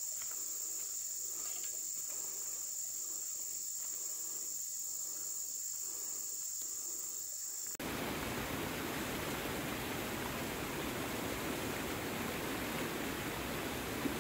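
Steady high-pitched insect drone from insects singing. About eight seconds in it cuts off abruptly and a steady rushing noise takes over.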